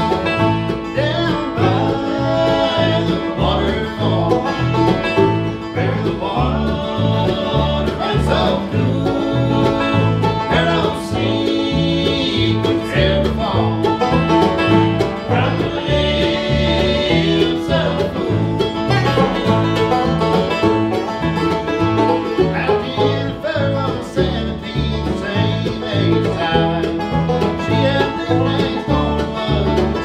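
Bluegrass band playing an instrumental tune: five-string banjo rolls, mandolin and acoustic guitar over upright bass plucking a steady beat.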